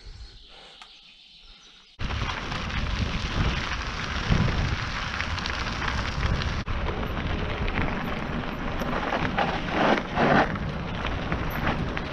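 Wind rushing over the microphone of a camera on a bicycle ridden fast along a dirt track, mixed with tyre rumble on the loose surface. The noise starts abruptly about two seconds in, after a quiet moment.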